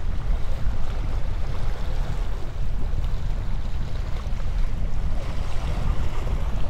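Wind buffeting the microphone as a steady low rumble, over the wash of small waves breaking against the rocks below.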